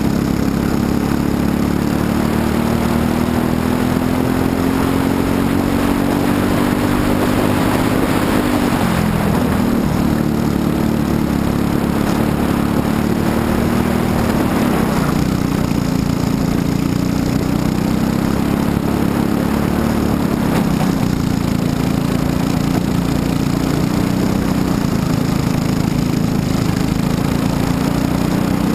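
Briggs & Stratton LO206 single-cylinder four-stroke kart engine running flat out, heard from on board. Its pitch climbs steadily along the straight and drops sharply about nine seconds in. It drops again around fourteen seconds as the throttle is lifted for corners, then climbs again.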